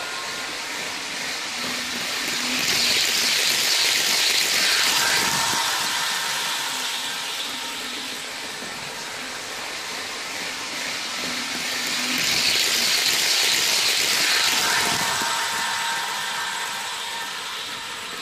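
Electric train sound from a model train's ESU sound decoder, played through its small loudspeaker. It is a steady running sound with faint held tones, and it swells twice into a loud hiss lasting a couple of seconds each, about three seconds in and again about twelve seconds in.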